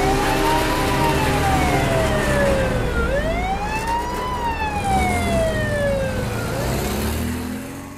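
Siren wailing: a slow rise over about a second, then a longer fall, repeating about every three and a half seconds over a low rumble, fading out near the end.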